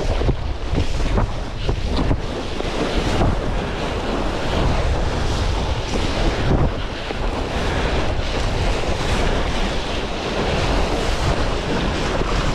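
Wind buffeting the microphone, with water sloshing and splashing at the nose of a stand-up paddleboard being paddled.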